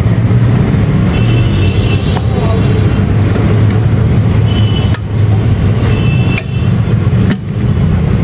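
A steady low mechanical rumble, with a few sharp clicks and faint high squeaks over it.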